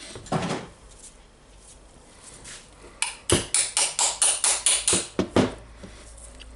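Hammer striking a metal punch in a quick run of sharp, ringing blows, about five a second, starting about halfway through, to drive the armature of a Makita 3708FC router out of its housing. The armature is held by a seized ball bearing.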